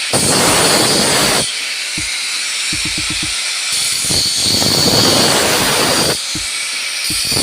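Metal cable tray being cut: loud, harsh hissing passes of one to two and a half seconds, separated by short pauses with a few light knocks.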